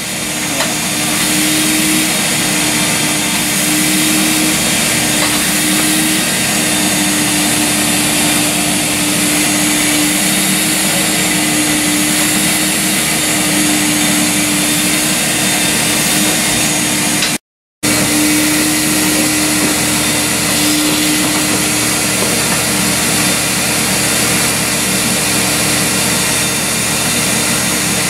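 Portable on-site drapery dry-cleaning machine running steadily as its hose-fed hand tool works along the draperies: an even, vacuum-like hiss over a steady hum. The sound drops out for a moment about two-thirds through.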